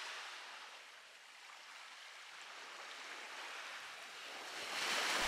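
Small Atlantic waves washing onto a sandy beach: a soft, even surf hiss that dips about a second in and swells again toward the end.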